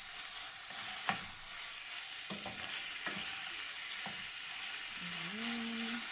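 Marinated turkey breast sizzling in oil in a non-stick frying pan, with about five sharp taps of a utensil against the pan as it is stirred.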